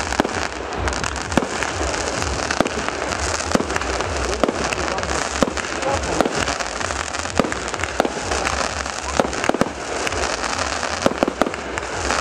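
Aerial fireworks going off: a dense, irregular run of sharp bangs and crackles, several a second, over a continuous low rumble.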